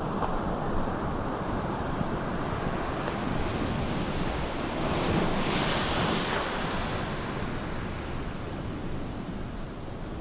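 Ocean surf rushing steadily, with one wave breaking and swelling louder about five seconds in.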